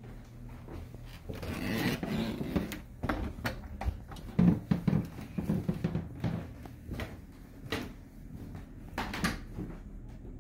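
Irregular knocks and rubbing from footsteps on hardwood floors and handling of a hand-held phone, with a patch of rubbing noise about two seconds in and a run of uneven thuds and clicks after it.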